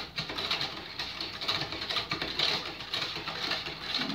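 Spoon stirring liquid in a stainless steel pot, with rapid, irregular clinking and scraping against the metal: sugar being stirred into hot brine until it dissolves.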